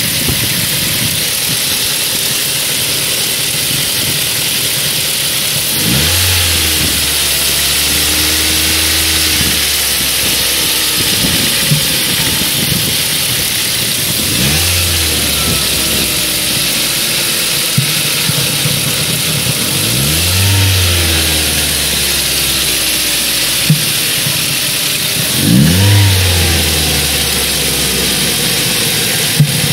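Ford 1.8 Duratec four-cylinder petrol engine idling and blipped four times, with the rattle of its intake manifold flaps. A single sharp pop comes every six seconds or so between the revs, a pop whose cause is unknown.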